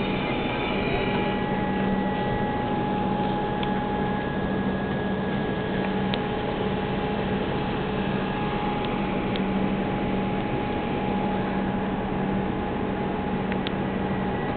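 Comeng electric train standing at the platform, its on-board equipment humming steadily with several held tones over an even rushing noise. A few faint ticks sound now and then.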